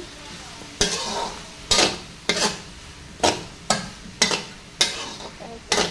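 Metal spatula scraping and tossing pork and water spinach stems in a wok, about eight sharp strokes, over a steady sizzle of stir-frying.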